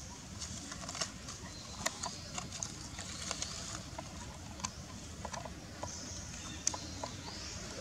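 Outdoor ambience: scattered light clicks and rustles of dry leaf litter, with a few faint high chirps over a low rumble.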